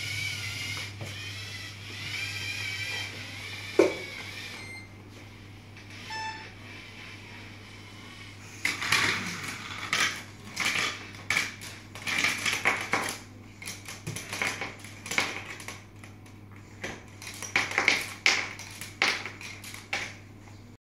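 LEGO robot's small electric motors whine, wavering in pitch, then stop with a sharp click. After a few short beeps comes a long run of irregular plastic clattering and knocking as LEGO parts and mission pieces rattle and drop.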